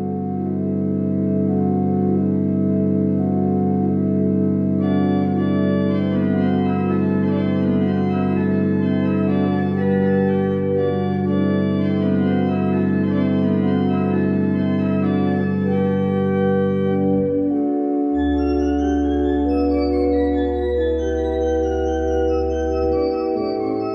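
Church pipe organ playing sustained full chords over a held pedal bass. More upper voices enter about five seconds in. Later the pedal bass drops to a lower note and quicker moving lines sound in the upper part.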